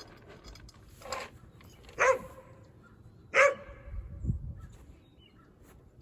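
A dog barking three times, short single barks about a second apart, the last two louder.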